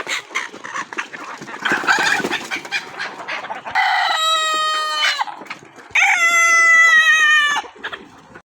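Desi chickens clucking, then a rooster crows twice, two long crows a couple of seconds apart, each trailing off downward at the end.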